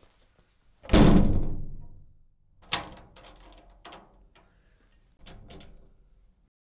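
A loud slam about a second in that rings out for about a second, then a second sharp knock and several lighter knocks and thuds. The sound cuts off suddenly near the end.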